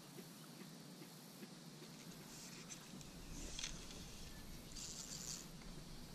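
A few brief, soft hissing swishes of fly line being stripped and cast with a fly rod: one about two and a half seconds in, one around three and a half seconds, and a last one around five seconds, over a faint steady low background.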